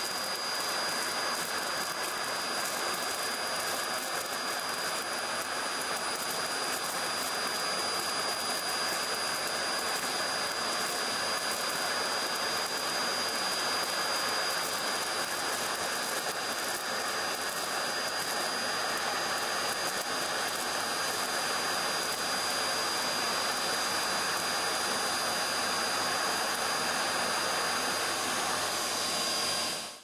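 Vacuum cleaner running steadily through a bare hose nozzle: an even rushing hiss of sucked air with a thin high whine, cutting off suddenly at the end.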